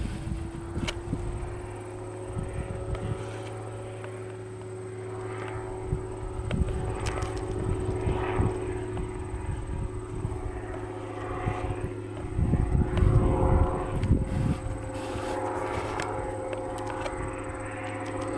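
Propeller-driven light aircraft engine running at a steady drone, its pitch rising slightly just after the start. Gusts of wind buffet the microphone with uneven low rumbles throughout, heaviest about two-thirds of the way through.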